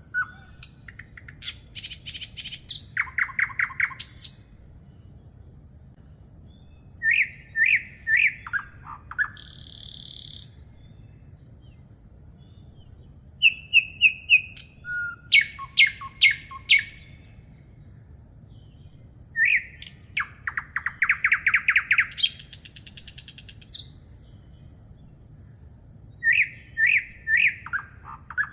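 Songbirds singing in a repeating chorus: short phrases of falling whistled notes, rapid trills and buzzy bursts, returning every few seconds.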